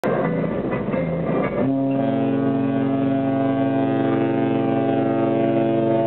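Cruise ship horn sounding one long, steady, deep blast that starts about two seconds in, part of horn salutes traded between two ships leaving port.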